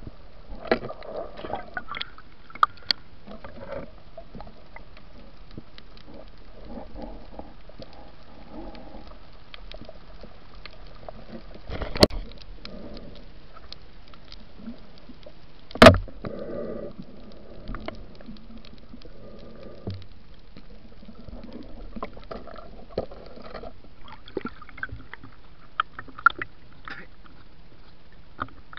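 Underwater sound from a diver's camera: a steady hiss with many small clicks and ticks, and two loud, sharp knocks about twelve and sixteen seconds in.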